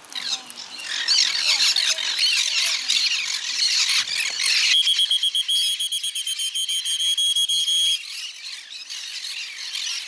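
A large flock of green-cheeked conures squawking and chattering all at once, a dense shrill noise of many overlapping calls. About five seconds in the sound changes abruptly: a steady, rapidly pulsing high tone comes in and the chatter thins.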